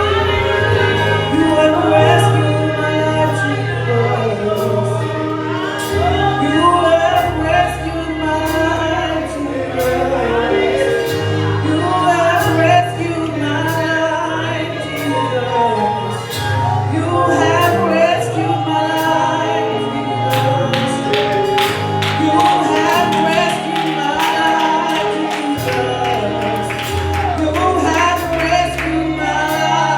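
Gospel worship music: singers over a band with bass and regular cymbal or hi-hat beats.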